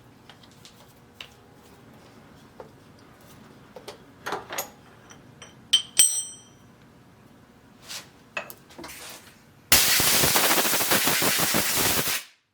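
Metal tools and parts being handled at a lathe over a faint low hum: scattered light clicks and knocks, and one sharp, ringing metal clink about six seconds in. Near the end a loud, harsh, rough noise lasts about two and a half seconds and stops abruptly.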